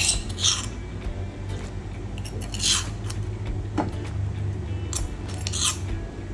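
A steel spoon scraping and clinking against a stainless steel saucepan a few times as smashed ginger is stirred into the water, over a steady low hum.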